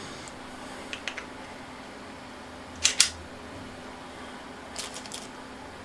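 Small metal parts (washers, screws and the carriage's bearing wheels) clicking and clinking as they are handled and set down on a wooden worktable: a couple of faint clicks about a second in, a sharper click about three seconds in, and a few more near the end, over a faint steady hum.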